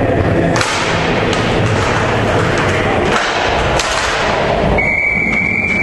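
Hockey play on a rink: a steady rumble of skates with several sharp knocks of sticks and puck. A high, steady whistle sounds near the end.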